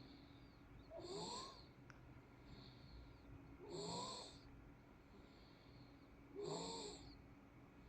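A 108-day-old baby snoring in his sleep: three short, small snores about every two and a half seconds, with fainter breaths between them.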